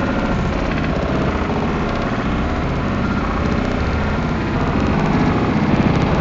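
Automatic car wash machinery running around the car, heard from inside the cabin: a loud, steady mechanical noise.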